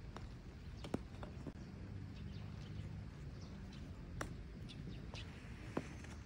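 A few faint, sharp clicks of golf clubs striking balls, spaced a few seconds apart, over a low steady background hum.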